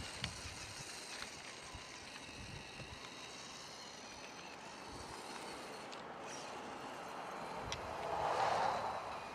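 Axial SCX10 Deadbolt electric RC rock crawler driving over pavement, its motor and gears whirring with tyre noise and a few light knocks. It grows louder near the end as it comes closer.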